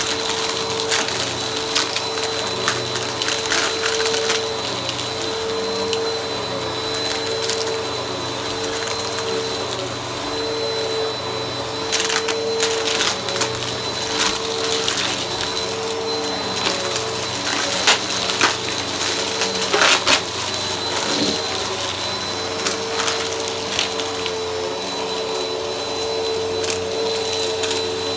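Vacuum cleaner running steadily with a high whine and a wavering motor tone. Frequent sharp clicks and crackles of debris are being sucked up.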